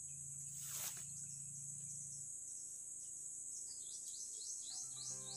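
Steady high-pitched insect buzz, with a brief rustling swish about a second in. Background music with short repeated chirping notes fades in near the end.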